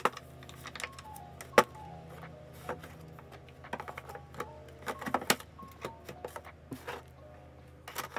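Pens and plastic stationery being handled and set down: a string of sharp clicks and clacks, the loudest about one and a half seconds in and a quick cluster about five seconds in, over background music with held notes.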